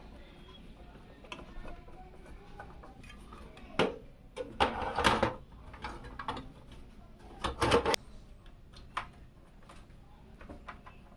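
Sharp clicks and clattering of hard plastic and metal parts being handled and fitted, with two louder bursts of clatter around the middle.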